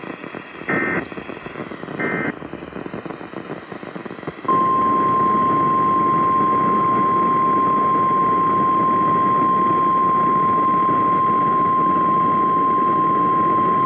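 Weather radio emergency alert signal over radio static: two short buzzy data bursts of the SAME digital header about a second apart. About four and a half seconds in, the steady 1050 Hz weather warning alarm tone starts and holds.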